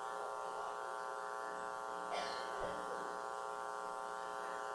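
Steady electrical buzz with many even overtones, a constant hum carried through the sound system, with a faint brief noise about halfway through.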